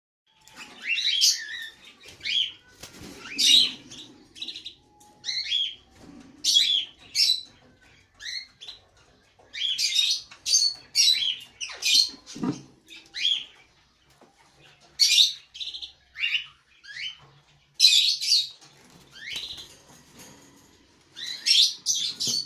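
Cockatiels giving short, shrill chirping calls, roughly one a second in irregular bursts.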